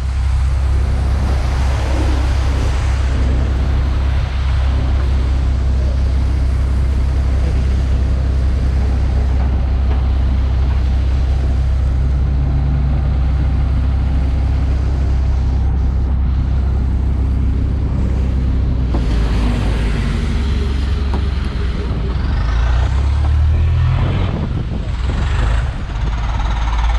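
Heavy construction machinery's diesel engine running steadily, a deep continuous hum with mechanical noise over it; the sound changes about twenty seconds in, with a rising whine near the end.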